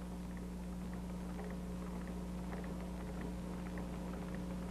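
Steady low electrical hum with faint, scattered ticks and crackle, the background noise of an old film soundtrack with no other sound event.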